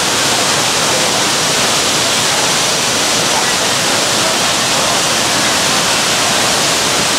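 Steady rushing of a waterfall, with faint voices of passing people underneath.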